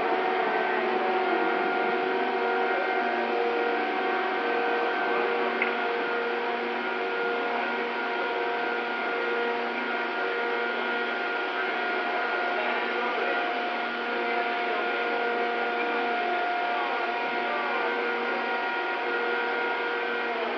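Steady mechanical hum with several fixed whining tones from the ship's cargo crane running at constant speed as it hoists a load of steel rails out of the hold. A single brief click comes about six seconds in.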